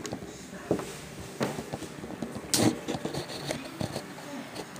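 Handling noise from the netbook and camera: a few short knocks and clicks over a low rustle, the loudest about two and a half seconds in.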